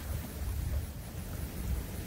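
Wind buffeting the microphone: an uneven low rumble over a faint steady hiss.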